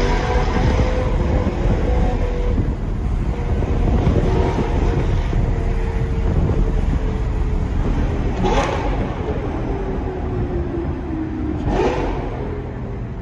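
Lamborghini Gallardo Superleggera's V10 engine, fitted with an aftermarket F1-style exhaust, running at speed on the highway with a heavy low rumble, its note drifting slowly downward. Two short sharp cracks come from the exhaust about three seconds apart near the end.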